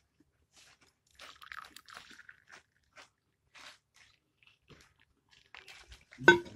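Quiet crisp crunching from someone biting and chewing a crunchy snack, in short scattered bursts through the first few seconds, then a brief louder sound near the end.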